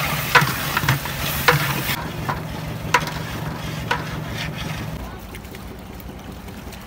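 Mutton sizzling in a large metal cooking pot while a long metal ladle stirs it, knocking and scraping against the pot about every half second. The sizzle fades about two seconds in, and the knocks stop about five seconds in, leaving a quieter steady background.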